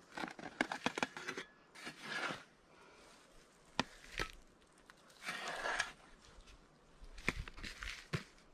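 Small hand spade scraping and scooping dry earth and clay into a plastic bucket, in several short rasping strokes with sharp clicks and knocks in between.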